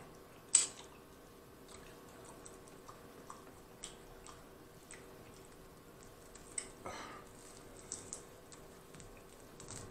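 Close-miked chewing of saucy barbecue ribs: faint wet mouth smacks and small sticky clicks, with one sharp smack about half a second in and a short wetter squelch near the end.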